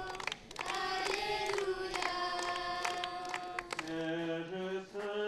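A group of children singing a song together in unison, with handclaps keeping time.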